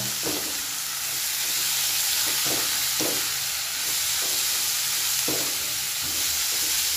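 Shredded chayote sizzling in hot oil in a wok, tossed by a spatula that scrapes and stirs through it in a few short strokes.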